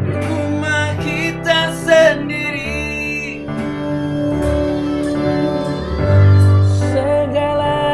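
Background song: acoustic guitar accompanying a voice singing a melody.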